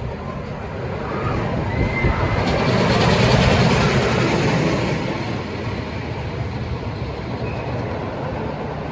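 Roller coaster train rumbling and rattling along its track, growing louder about three seconds in and then easing off.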